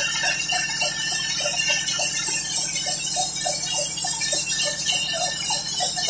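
Large sawmill band saw running steadily as it rips a mahogany plank, a low hum under a high hiss from the blade. Short chirps repeat over it about three or four times a second.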